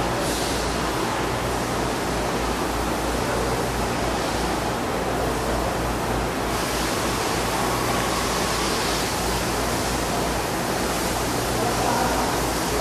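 Steady, even hiss of background noise with a faint low hum underneath; the upper part of the hiss gets brighter about halfway through.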